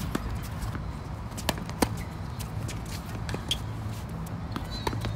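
Tennis rally on a hard court: the ball struck by rackets and bouncing as a few sharp pops, the loudest about two seconds in, with players' footsteps and shoe scuffs over a steady low background rumble.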